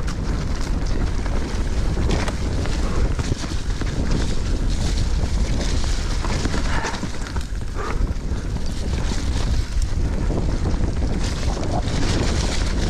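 Wind rushing over an action camera's microphone as an enduro mountain bike descends a dirt trail at speed, with tyres rolling over dirt and dry leaves and repeated knocks and rattles from the bike over bumps.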